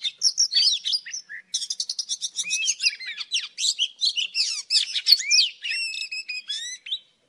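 Oriental magpie-robin singing: a fast, varied stream of whistled notes, slurs and trills, with a quick run of clipped notes about a second and a half in. The song cuts off suddenly near the end.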